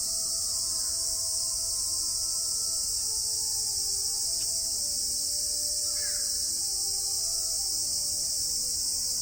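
Cicadas in Japan singing: a steady, unbroken, high-pitched buzz with no pauses.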